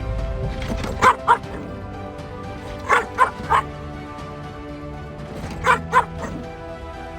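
Puppy barking in short, sharp yips: two, then three, then two, over background music.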